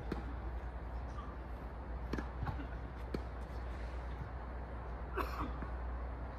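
A few sharp knocks from tennis balls being struck and bouncing on the court, about two to three seconds in, then a brief louder noise about five seconds in, over a steady low hum.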